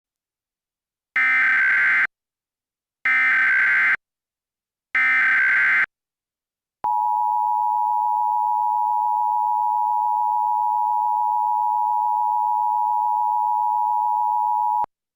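Emergency Alert System alert tones marking the start of an emergency alert: the SAME digital header sent three times as short data squawks about a second long and two seconds apart, then the steady two-tone attention signal held about eight seconds before it cuts off suddenly.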